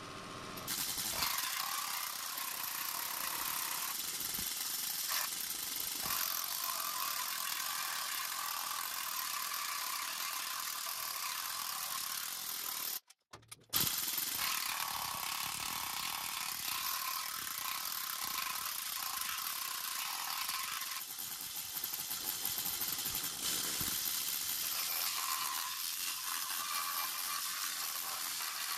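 Steady mechanical running noise with a hiss, with no distinct strokes or rhythm; it cuts out briefly about thirteen seconds in.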